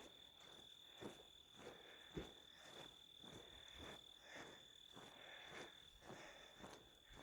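Faint footsteps on a hiking trail, about two a second, under a steady high-pitched cricket trill.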